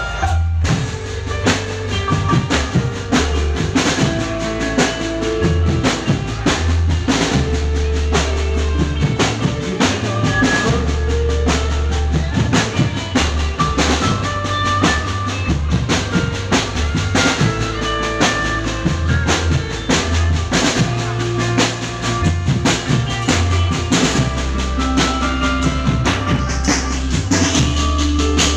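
Live band playing an instrumental passage of a Malay/Indonesian pop song: drum kit with bass drum, snare and rimshots keeping a steady beat under bass and melodic instruments.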